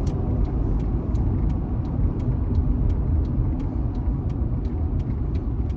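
Car cabin with steady low road and engine rumble, and a turn signal clicking evenly, about three ticks a second.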